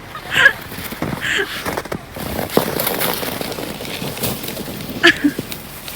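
Children giving a few short, high-pitched shrieks while playing with sleds in the snow, over a rough crackling, scraping noise.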